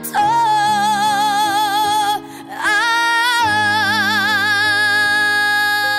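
A song with a vocalist holding two long sung 'ah' notes with vibrato over sustained accompaniment. There is a brief break about two seconds in, and the second note slides up into a slightly higher pitch.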